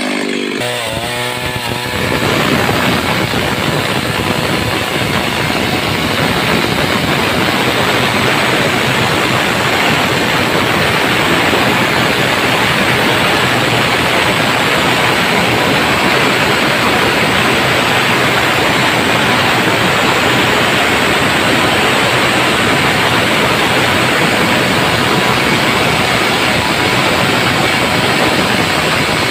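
Stihl petrol chainsaw revving up over the first two seconds, then running at full throttle as it rips lengthwise through a plank, with a steady, even cutting sound under load.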